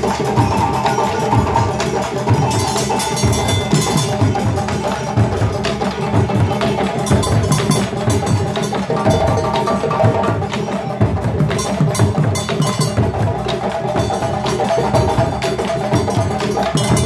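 West African hand-drum ensemble, djembes among the drums, playing a fast, dense, continuous rhythm.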